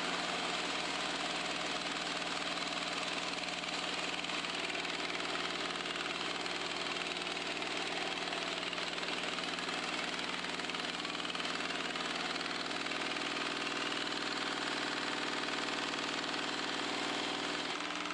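Motor-driven power hammer running steadily, its ram hammering rapidly on a long metal trim strip fed through the dies: a constant machine hum under a fast chatter of strokes. It stops near the end.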